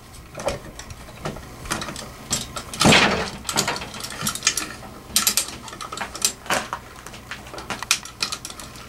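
Hand-operated ratchet hoist clicking in short, irregular strokes as it lifts an ATV, with a louder metal clank about three seconds in.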